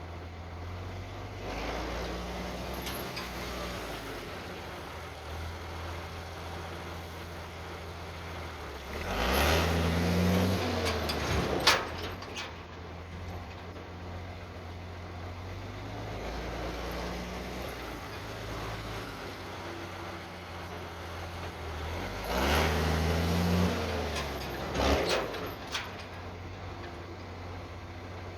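M35A2 deuce-and-a-half truck's multifuel turbo-diesel engine running steadily. It revs up twice for a few seconds, each time with the pitch rising and falling, and each rev ends with a couple of sharp, short sounds.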